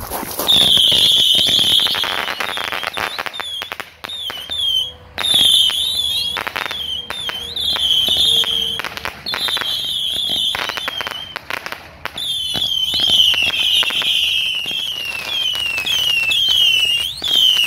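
Consumer fireworks firing a rapid series of whistling shots: high whistles, each dropping slightly in pitch, one after another, mixed with pops and crackling. There are brief lulls about four seconds in and again around twelve seconds.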